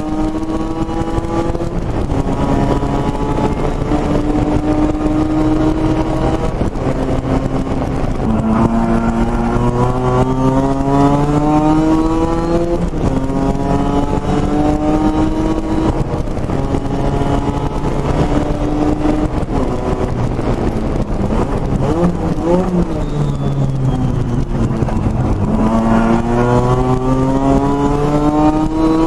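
Highly modified peripheral-port Mazda 10A rotary engine in a 1972 RX-3, heard from inside the cabin, revving hard through the gears: its pitch climbs and drops at each upshift, several times over. About two-thirds through the pitch falls away and wavers, then climbs again near the end.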